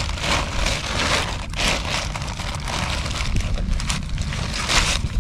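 Thin plastic carrier bag crinkling and rustling in irregular bursts as a gloved hand rummages inside it, over a steady low rumble.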